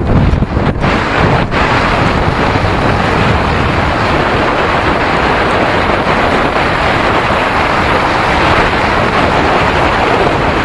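Wind rushing over the microphone of a camera riding along on a moving bicycle: loud, steady noise with no tones, with a few brief dips in the first second and a half.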